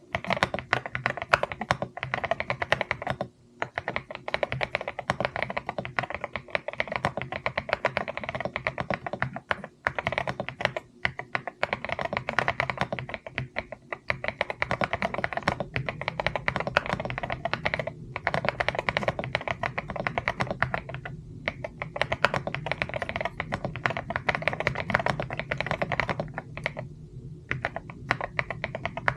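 Mechanical keyboard being typed on fast and continuously, a dense run of key clicks with a few short pauses between bursts.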